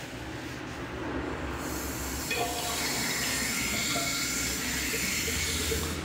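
Tap turned on and water streaming steadily from the spout into a sink, starting about a second and a half in.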